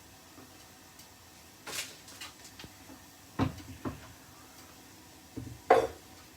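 A few scattered knocks and clunks of kitchen things being handled and set down, like a bottle or a cupboard door. The loudest is a sharp knock near the end.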